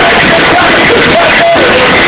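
Rock band playing live at a steady, very loud level.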